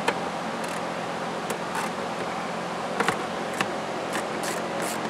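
Scattered small metal clicks and rattles as a car battery's cable terminal is worked loose and lifted off the post, over a steady background hum.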